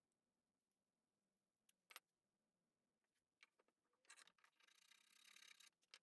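Faint workbench handling: two small clicks about two seconds in, then a scratchy rasping scrape lasting nearly two seconds from about four seconds in, a small hand tool being worked against a small metal part.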